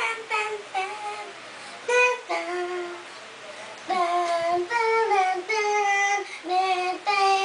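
A young boy singing unaccompanied, holding a run of steady notes that step up and down in pitch, softer for a stretch in the middle.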